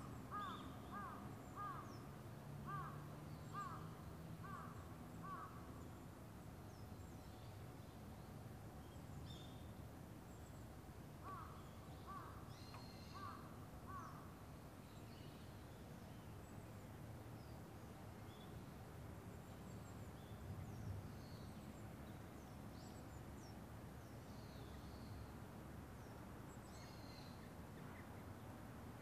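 Crows cawing in two runs of short repeated calls, about eight in the first few seconds and about five more near the middle. Scattered high small-bird chirps and a low steady rumble run underneath.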